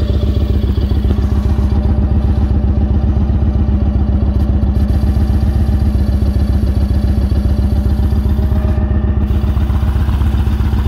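2013 Yamaha Raider SCL's 1,854 cc air-cooled V-twin idling steadily through a Cobra full exhaust, with a fast, even pulse.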